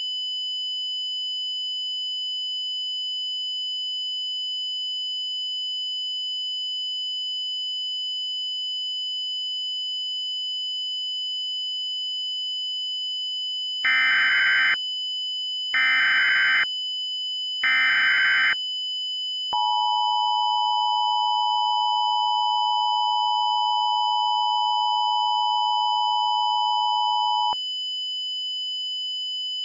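A steady, high electronic tone sounds throughout. About fourteen seconds in come three short bursts of Emergency Alert System SAME header data about a second apart, then the EAS two-tone attention signal, held for about eight seconds.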